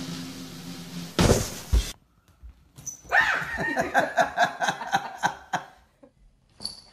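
A loud rustling thump, then, after a short pause, an animal making a quick series of short whining cries for about two and a half seconds.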